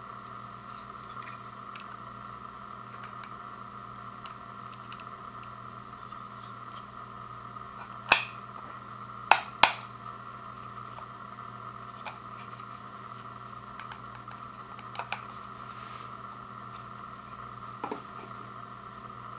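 Sharp plastic clicks from a handheld wireless optical mouse and its snap-on magnetic top cover: three in quick succession about eight to ten seconds in, the first the loudest. Lighter ticks follow, with a small knock near the end as the mouse is set down on a wood floor, over a steady background hum.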